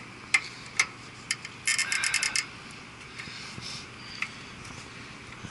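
Sharp metallic clicks from hand tools being worked: three single clicks, then a quick run of about six clicks about two seconds in, then a few fainter ticks.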